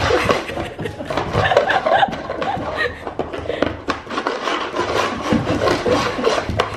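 A chocolate Labrador puppy pawing and shoving a clear plastic food bowl across a hardwood floor: the bowl scrapes and knocks against the boards in quick irregular clatters, with paws scuffling.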